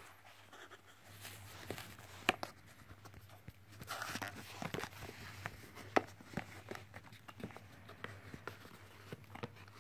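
Hands handling a cardboard retail box: scattered light taps and knocks, and a brief rustle of the inner tray sliding in its sleeve about four seconds in. A faint steady low hum comes in about a second in.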